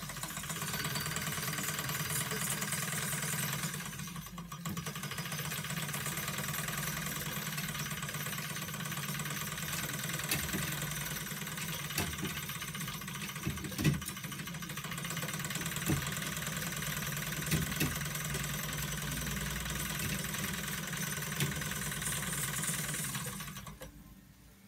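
Wilesco showman's traction engine, a small live-steam model, running fast with a dense rapid mechanical clatter as it drives a model Ferris wheel through a drive band. A few sharp knocks sound along the way, and the running dies away near the end.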